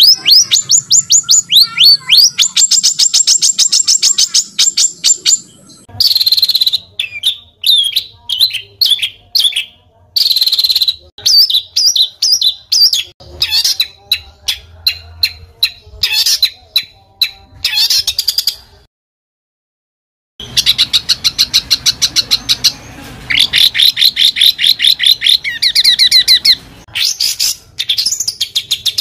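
Recorded songbird song made of harsh, rapid repeated high notes and trills, the 'tembakan kasar' (harsh shot) phrases used to train competition songbirds. The song changes abruptly about six seconds in, with a brief silent gap just past the middle, as separate recordings are spliced together.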